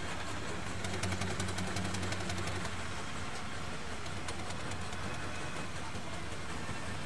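A vehicle engine running with a low hum that fades away over the first few seconds, leaving a steady mechanical background with faint rapid ticking.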